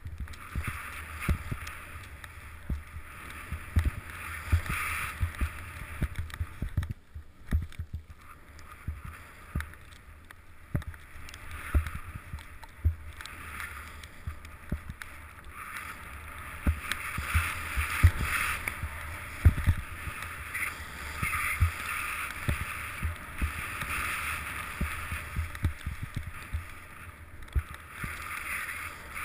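Deep powder snow hissing and swishing under a rider gliding through it, swelling and fading through the turns, with frequent dull thumps from the camera mount.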